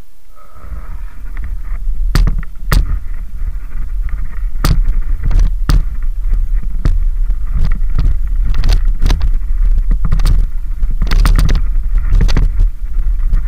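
Mountain bike riding over a rough gravel and dirt trail, picked up by a camera mounted on the bike: a constant heavy rumble of tyres and ride noise with frequent sharp clacks and rattles as the bike hits bumps. It grows louder over the first couple of seconds as speed builds.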